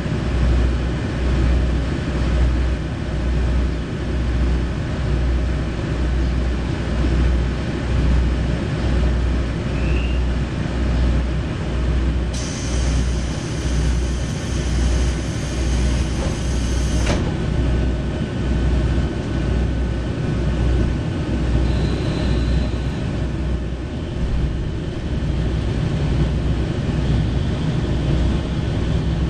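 KiHa 40 series diesel railcar running as heard from inside the passenger cabin, its underfloor diesel engine giving a steady low throb about twice a second as the train pulls away after the doors close. A high hiss cuts in about twelve seconds in and stops abruptly some five seconds later.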